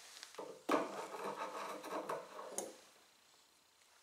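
Thread being drawn through and along the cloth covering of a wooden kite wing during hand-sewing: a rough rubbing sound lasting about two seconds, with a sharp tick near its start.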